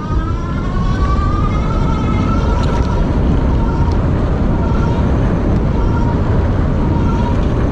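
E-bike's electric motor whining, the whine rising in pitch as the bike accelerates and then holding steady, fading in and out. Under it, a loud low rumble of wind and road noise while riding.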